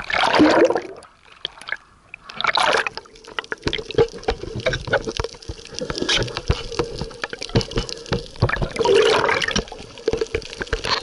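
Water sloshing and rushing over a camera's microphone as it dips in and out of the sea surface, with three loud rushes (at the start, about two and a half seconds in, and near the end) and crackling clicks of bubbles and water between.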